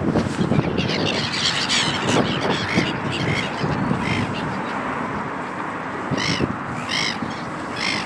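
Black-headed gulls calling with harsh cries. A flurry of overlapping cries comes in the first two seconds, then single calls about a second apart, over steady wind and water noise.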